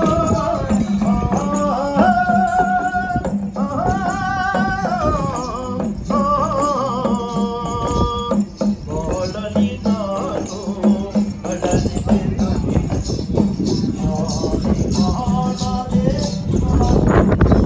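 Folk singing of a slow melody in long held notes, with a small hand percussion jingling and rattling in rhythm beneath it.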